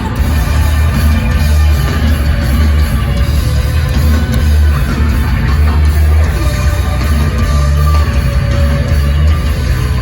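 A heavy rock band playing loud and live, with a strong, steady low bass under distorted guitar and drums.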